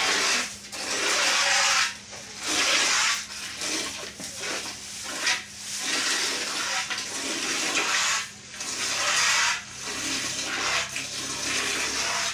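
Cow being milked by hand: milk streams hiss into a pail in repeated spurts, each run lasting a second or two with short pauses between.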